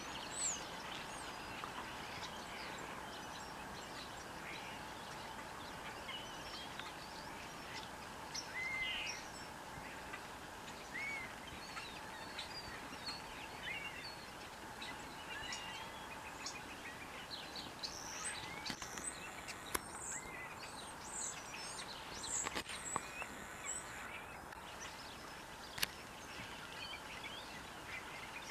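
A flock of perching birds calling from a bare tree: many short chirps and whistles, scattered and overlapping, over a steady outdoor hiss. A single sharp click comes near the end.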